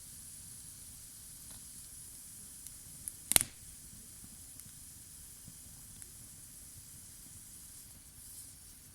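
Wood campfire burning: a steady high hiss with scattered small crackles and one sharp pop a little over three seconds in.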